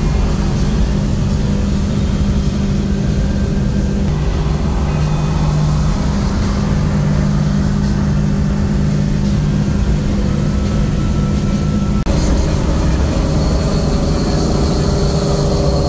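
Old car's engine droning steadily with road and wind noise, heard from inside the cabin at highway cruising speed. The sound changes abruptly about twelve seconds in.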